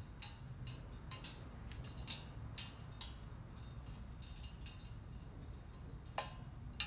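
Mr. Heater propane cone heater: irregular sharp ticks and clicks from the heater, about one or two a second, over a low steady rumble.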